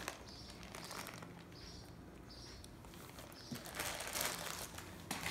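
Faint rustling and handling noise, louder from about three and a half seconds in.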